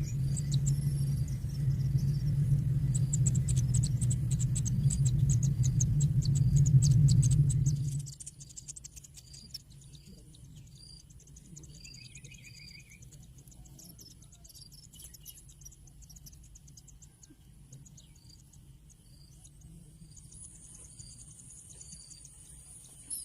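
High insect trilling with short repeated bird-like chirps and a brief falling run of notes. A steady low hum runs underneath and stops abruptly about eight seconds in.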